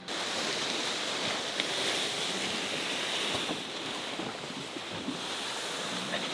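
Steady hiss of open sea water washing around a sailboat under way, with some wind noise on the microphone.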